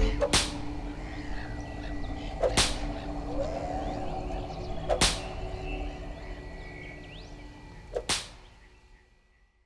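Four sharp cracks, evenly spaced about two and a half seconds apart, over a faint steady background with a thin high tone. Everything fades away just before the end.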